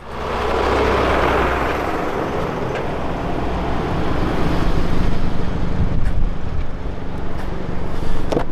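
Hyundai i30 N hatchback driving slowly over paving stones: a steady low engine hum with tyre noise, swelling over the first second or so.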